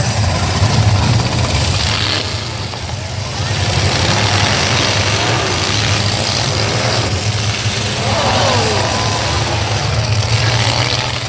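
Several full-size pickup truck engines in a demolition derby running and revving together, a loud, steady, low rumble with a few rising and falling revs.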